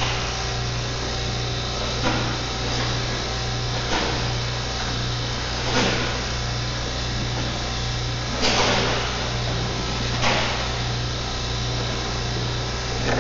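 Steady electrical machine hum running throughout, with a handful of brief knocks and rustles from something being handled, about every two seconds.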